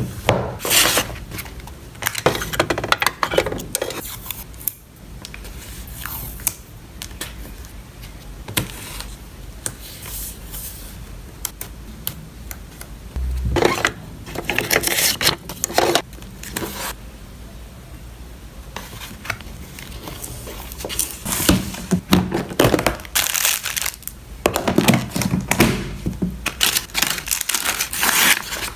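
Hands packing photocards: plastic cases and sleeves tapping and clicking as they are handled and set down, with plastic and paper crinkling as the packet is wrapped. The handling gets busier in the last third.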